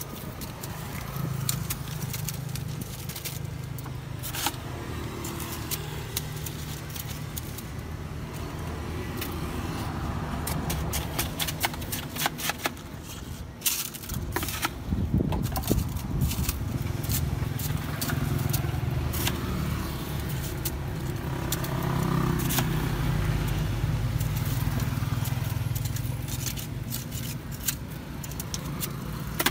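A plastic scoop scraping and crunching through shaved ice in a plastic tub, with scattered clicks and crackles as the ice is packed onto a cup. A steady hum of motor traffic runs underneath and grows louder past the middle.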